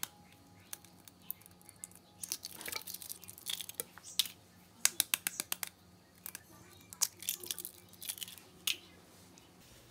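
Eggs being tapped against a plastic blender jug and their shells broken open over it: sharp clicks and taps, several times, some in quick clusters.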